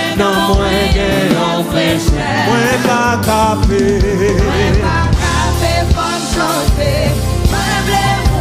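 Live gospel worship song: a male lead vocalist sings into a microphone with backing singers, over a band with steady bass and drums.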